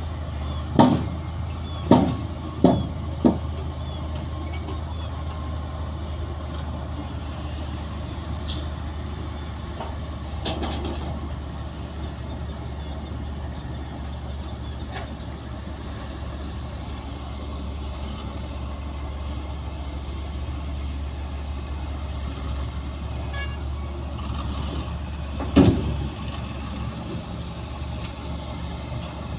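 Heavy construction machinery diesel engine running steadily with a low drone, broken by four sharp bangs in the first few seconds and one more bang near the end.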